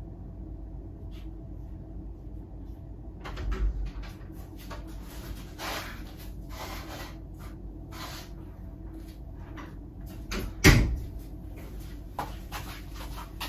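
Steady low room hum with a dull thump about three and a half seconds in. A run of rustling and shuffling follows, then a sharp bang of a door shutting about four-fifths of the way through, the loudest sound.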